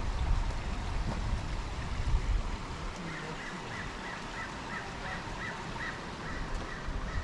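A bird calls repeatedly in a quick even series, about three short calls a second, for a few seconds from about three seconds in. Before it there is a low wind rumble on the microphone.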